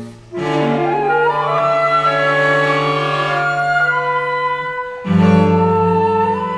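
Orchestral music: bowed strings hold low notes beneath a rising run of higher notes, and a fuller, louder chord comes in about five seconds in.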